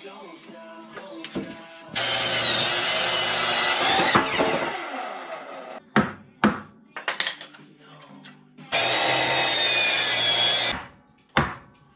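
Power saw cutting wood twice, each cut about two seconds long, with the motor winding down after the first. A few sharp knocks of wood being handled fall between the cuts, and one more comes near the end.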